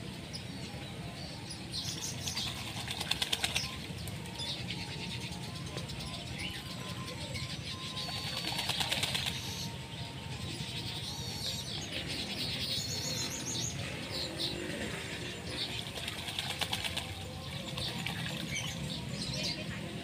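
Whistling ducks bathing in shallow water: repeated splashing and wing-flapping, with a quick run of flaps about three seconds in. Short, high chirping bird calls come through now and then.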